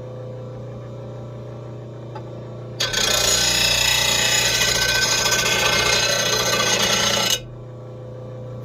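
RBG-712 blade sharpener's grinding wheel running with a steady hum; about three seconds in, a lawn mower blade edge is pressed to the wheel and ground loudly for about four and a half seconds, then lifted off suddenly.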